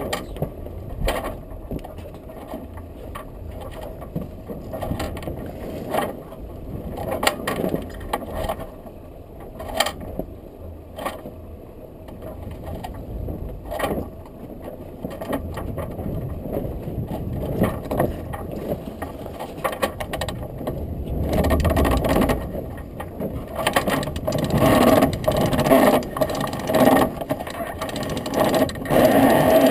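Sailboat headsail being hoisted into its roller-furler foil: scattered sharp clicks and knocks of the rigging hardware over steady wind and sea noise. The noise grows louder about two-thirds of the way through as more sail goes up.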